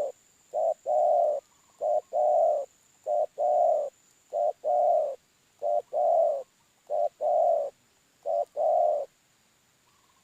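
Dove cooing used as a lure call for balem or deruk doves: a short coo followed by a longer one, repeated seven times in an even rhythm about every 1.3 seconds, then stopping. A faint steady high whine runs underneath.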